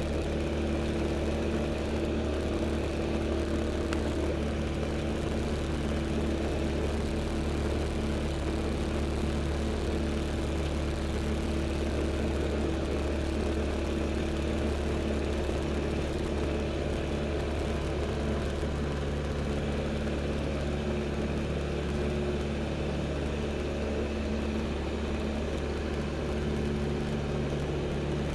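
L-13 Vivat motor glider's piston engine and propeller running steadily during the takeoff climb, heard from inside the cockpit, with a steady low drone and air noise over the canopy.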